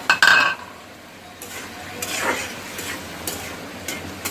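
A utensil clinks with a brief ring against the cooking pot, then scrapes in a series of stirring strokes about every half second as lentils are stirred through a frying spice paste, with a low sizzle underneath.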